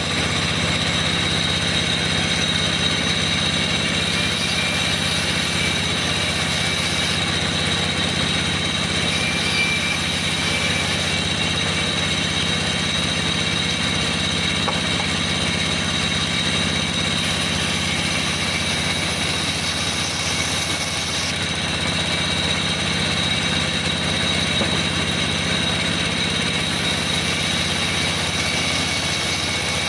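Vertical band sawmill running steadily while timber is ripped into boards: a constant low hum with a high, even whine, and no pauses or changes in speed.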